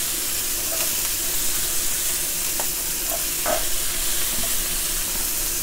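Diced onions frying in oil in a wok with a steady sizzle. A wooden spatula stirs them, with a few light knocks against the pan about halfway through.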